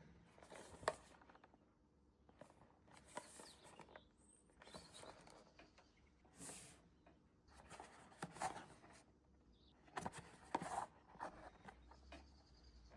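Blind-box packaging being handled: soft, intermittent rustling and crinkling in short bursts every second or two, with one sharp click just under a second in.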